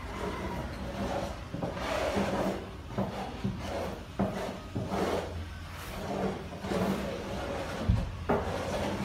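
Repeated rasping scrapes and rubs against a hard surface, with a sharp knock about eight seconds in, over a low steady hum.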